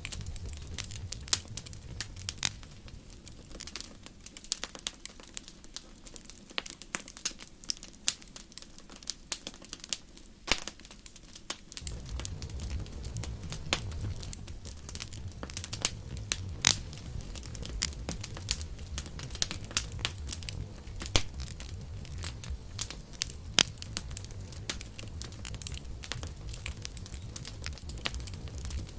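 Campfire crackling, with irregular sharp pops and snaps over a low rumble of flame. The low rumble dies down about four seconds in and comes back about twelve seconds in.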